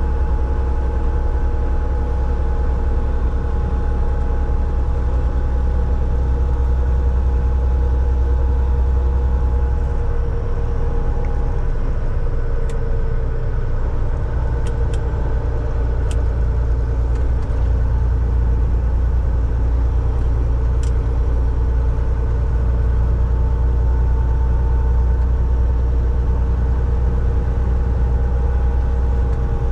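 Semi-truck driving steadily: a deep, constant rumble of engine and road with a steady hum that drops a little in pitch about ten seconds in. A few faint clicks come in the middle.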